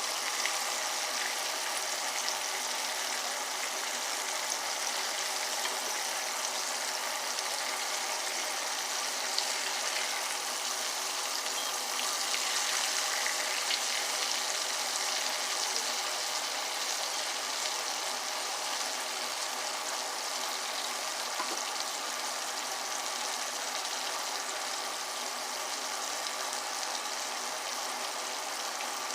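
Flour-coated ribs frying in hot oil: a steady sizzle with small crackles, over the even hum of a kitchen exhaust fan.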